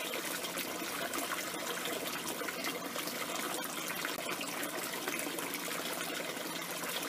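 Steady trickle of water running through a PVC-pipe hydroponic grow tower.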